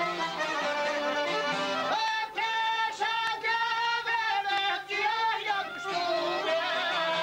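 Albanian folk music played on long-necked lutes, a çifteli and a sharki. About two seconds in, a voice comes in with one long, high held note over the instruments and drops away just before the end.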